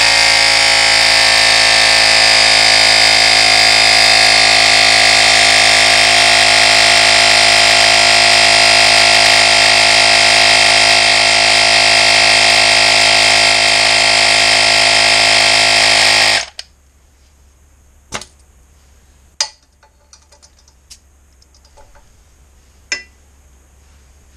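Stop & Go Mini Air Compressor, a small portable tyre inflator powered from the motorcycle, running loudly and steadily while pumping up a motorcycle tyre, then cut off suddenly about sixteen seconds in. A few light clicks follow.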